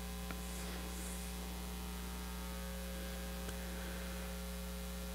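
Steady electrical mains hum: a low constant buzz with fainter higher steady tones above it, broken only by a couple of faint ticks.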